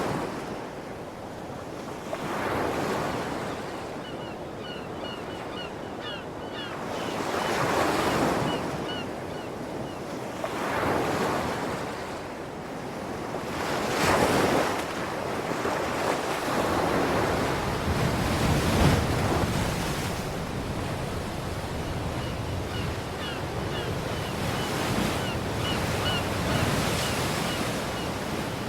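South China Sea waves washing in, swelling and ebbing every few seconds. Two runs of short, high, repeated chirps can be heard over them, one early and one near the end.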